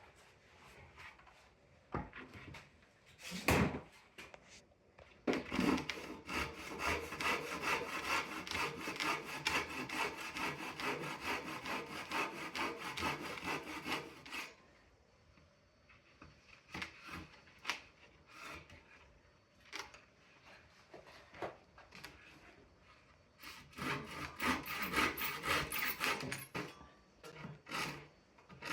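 A hand saw cutting wood in quick, even back-and-forth strokes: one long run of sawing, a pause, then a shorter run near the end. A couple of knocks of wood come first.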